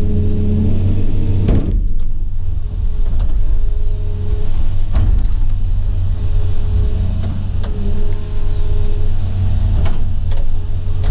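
Excavator's diesel engine running steadily under load, with a hydraulic whine that rises and drops away every second or two as the machine is worked.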